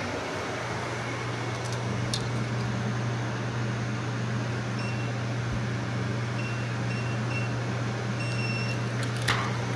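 Steady low hum of a building's corridor ventilation, with a few short high electronic beeps about halfway through and again near the end, and a light click shortly before the end.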